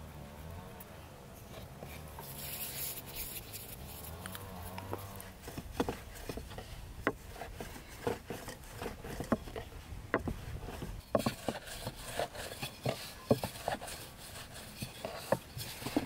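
A fly buzzing for the first few seconds. From about five seconds in, a wooden rolling pin rolls out khinkali dough on a floured wooden board, with irregular clicks and knocks of the pin against the board.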